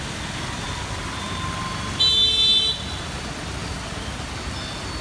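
A vehicle horn sounds once, a short blast of under a second about two seconds in, over steady road traffic noise.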